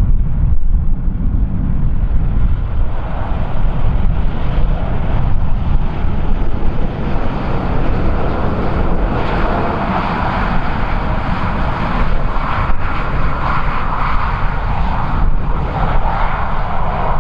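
Airliner engines running as a plane moves on the runway, a broad rushing noise that builds a few seconds in, over heavy wind rumble on the microphone.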